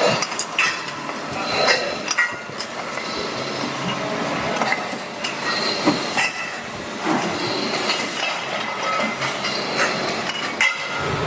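Factory machinery running with irregular metallic clanks, clicks and knocks over a steady mechanical noise.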